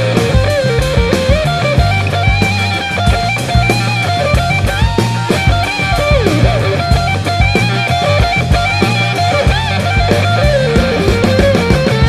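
Rock music with guitar and drums and a steady beat.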